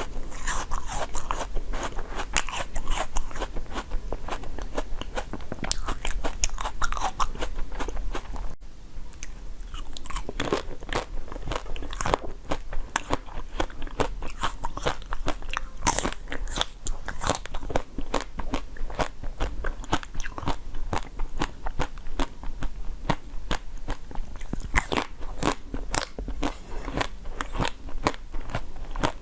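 Close-miked eating of frozen treats: a dense, continuous run of crunching bites and chewing, with a brief break just under nine seconds in.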